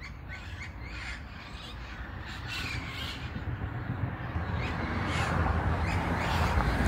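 A flock of parakeets squawking in the treetops, many harsh calls overlapping and growing louder, with a low rumble building underneath.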